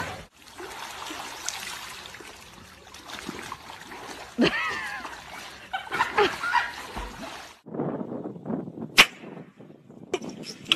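Dogs splashing as they swim in a pool, with a couple of short high calls partway through. After a break about seven and a half seconds in, a quieter stretch with one sharp click.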